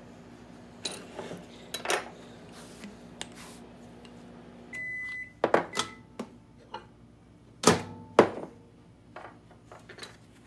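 Microwave oven heating a cup of soft-plastic remelt with a faint steady hum, then a single beep lasting about half a second, about five seconds in. The door latch clicks open just after, and two loud knocks follow about two seconds later.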